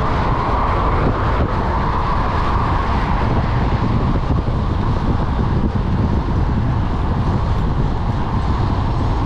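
Steady wind rush over a handlebar-mounted camera's microphone on a road bike riding at over 40 km/h, mixed with tyre hum on asphalt.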